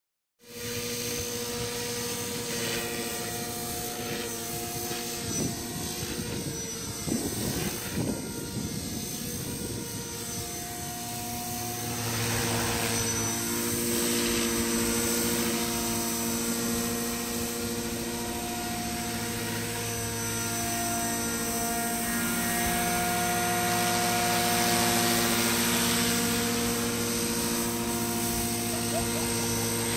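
Beam 450 radio-controlled helicopter flying, its motor and rotor blades whining steadily. The sound grows louder about twelve seconds in, and its pitch shifts slightly as the helicopter manoeuvres.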